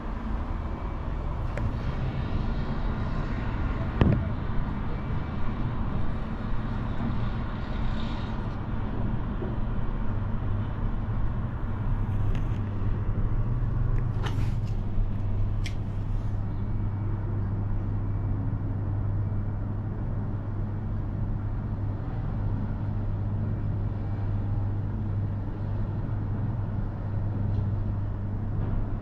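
Steady low hum and rumble inside a moving Emirates Air Line cable car gondola as it runs along the cable, with a sharp knock about four seconds in and a few clicks around the middle.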